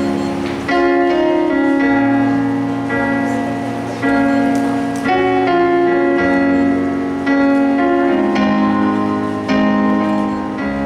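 Slow instrumental background music: sustained chords that change every one to two seconds.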